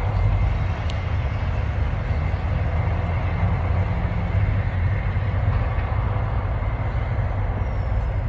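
Steady low rumbling noise, with a couple of faint clicks.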